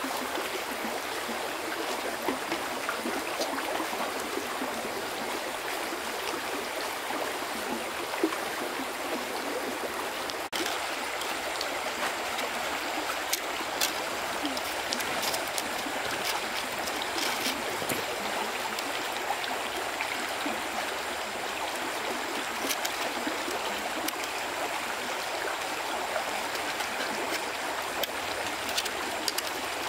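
Water flowing steadily in a stream, with a few faint light clicks over it.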